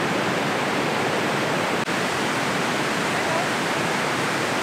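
Steady rushing of the Rhine Falls, a wide, powerful river waterfall: continuous white-water noise with no change in level.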